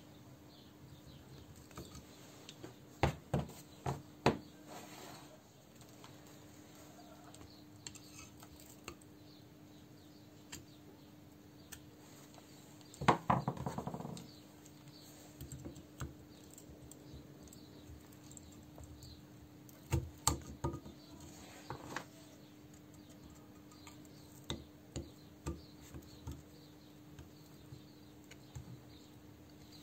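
Scattered clinks and knocks of metal parts and hand tools being handled on a workbench, with a louder clatter about 13 seconds in, over a steady low hum.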